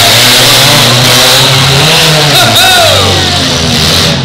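Demolition derby cars' engines running and revving hard, loud and close, over a steady din of noise.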